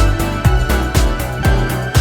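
Background music with a steady beat of about two strong low thumps a second under sustained notes.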